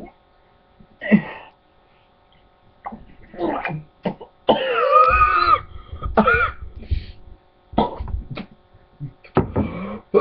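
A boy gagging, coughing and retching in a string of short throat sounds, with one longer, strained groan about halfway through, a reaction to gulping a mix of Dr Pepper, chocolate milk, applesauce and yogurt.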